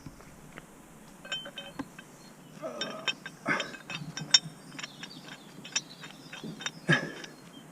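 Irregular metallic clicks and clinks, with a short squeak about three seconds in.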